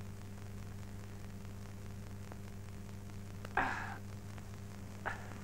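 Steady low hum of an old film soundtrack. About three and a half seconds in there is one short, breathy sigh, and a faint click near the end.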